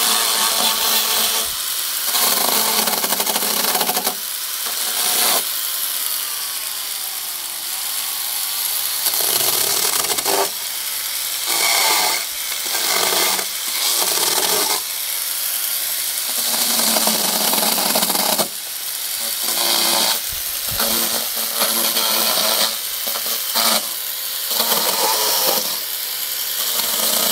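A small chainsaw cutting through sang mon bamboo culms near the ground, running in on-and-off bursts with short pauses between cuts.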